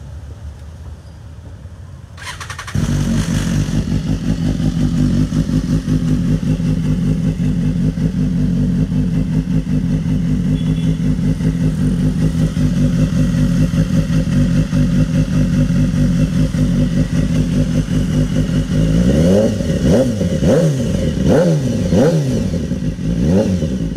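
BMW S1000RR inline-four motorcycle engine started on the electric starter. It cranks briefly about two seconds in, catches just before three seconds, and settles into a steady idle through an aftermarket SC-Project slip-on exhaust. From about nineteen seconds, several quick throttle blips make the revs rise and fall.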